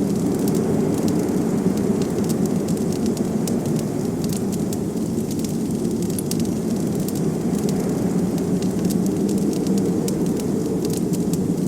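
Wood fire crackling with scattered sharp pops over a steady, low rush of blizzard wind.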